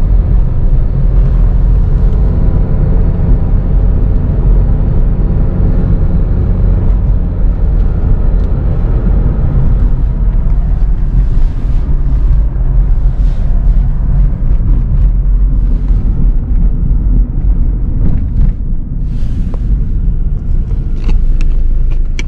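Steady low rumble of a car driving on the road.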